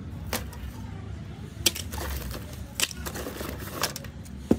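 Broken phone parts, glass screens and plastic and metal frames, clattering against each other as a hand rummages through a cardboard box of them. There are sharp clacks about once a second, the loudest near the end.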